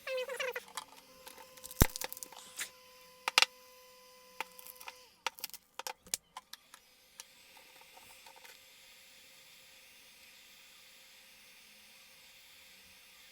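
Scattered sharp clicks and taps of a tool working at a phone's cracked glass back cover, the loudest about two and three and a half seconds in, dying away after about seven seconds.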